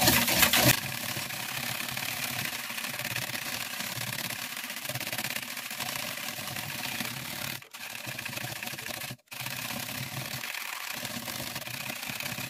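A wire whisk stirring salted vinegar brine in a plastic jug, a steady, even swishing as the added rock salt is dissolved; the sound cuts out briefly twice in the second half.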